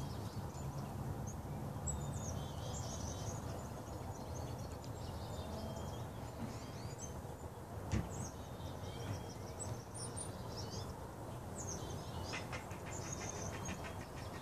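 Outdoor ambience recorded by a smartphone's camera microphone: birds chirping on and off over a steady low background noise, with a single knock about eight seconds in.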